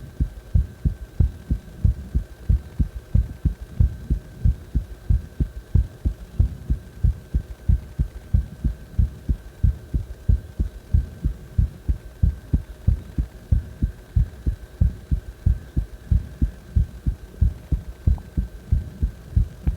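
A person's heartbeat heard close up: steady, evenly spaced low thumps that keep a regular rhythm.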